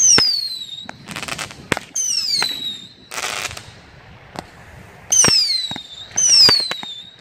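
A Pyro Demon 144-shot color pearl fireworks cake firing shot after shot. Each launch is a sharp pop. Four of the shots carry a high whistle that falls in pitch, and there are hissing bursts in between.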